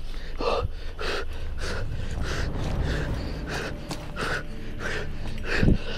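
A man breathing hard and fast while walking, short rhythmic breaths about every two-thirds of a second over a low rumble of handling noise, with a dull thump near the end.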